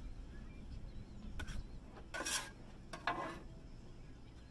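Metal griddle spatula scraping against metal in three short strokes, the middle one the longest.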